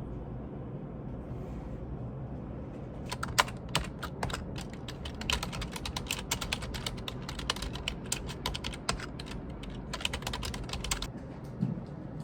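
Typing on a computer keyboard: a quick, irregular run of key clicks that starts about three seconds in and stops shortly before the end, over a steady low hum.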